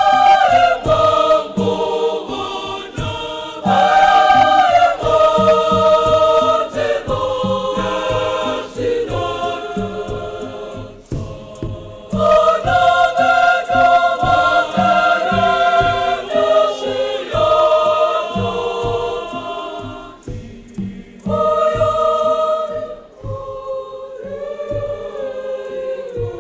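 Girls' school choir singing a Shona choral set piece in several parts, phrase by phrase with short breaks between phrases, over a steady percussive beat.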